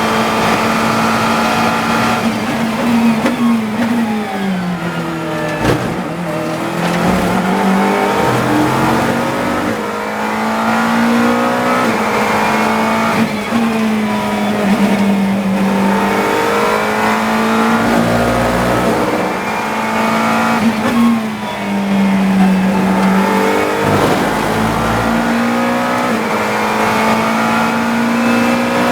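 GT3 race car's engine heard from onboard the car, held at a mostly steady high pitch, with three spells where the pitch steps down and climbs back, as in braking and downshifting for corners. A few sharp clicks come with the shifts.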